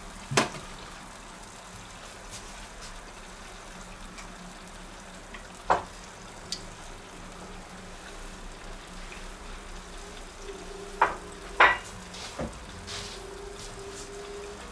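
A battered Twinkie deep-frying in hot oil in a stainless steel pot: a steady bubbling sizzle, broken by a few sharp clicks, three of them close together about three quarters of the way through.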